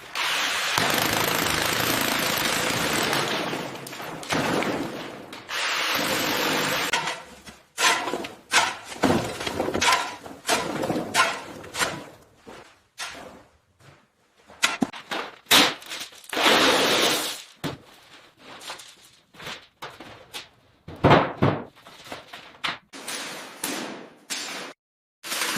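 Demolition work on a concrete floor. A power tool runs steadily for about four seconds, then briefly again. After that comes a long run of irregular knocks and impacts as the concrete is broken up and the debris is dug out.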